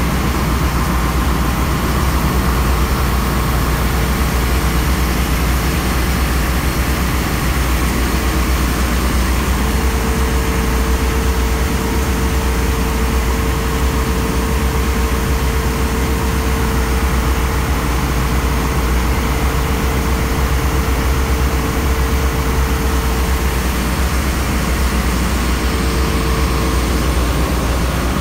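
Engine-room machinery of a bulk carrier running steadily: a deep, constant rumble under a wide hiss, with a thin steady mid-pitched hum that comes in a couple of seconds in.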